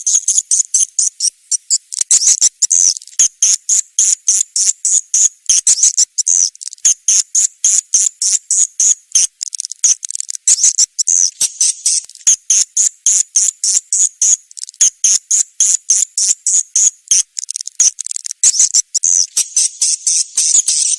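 Swiftlet calling sound used to lure swiftlets into a nesting house: a steady stream of rapid, high-pitched swiftlet chirps, several a second.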